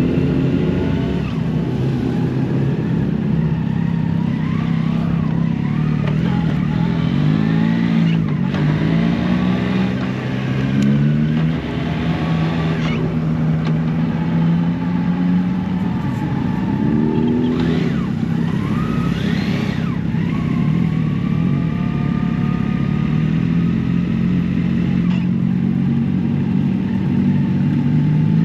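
Motor vehicle engine running with its pitch rising and falling, as in revving and easing off through the gears, dipping and climbing again about eight seconds in and near eighteen seconds.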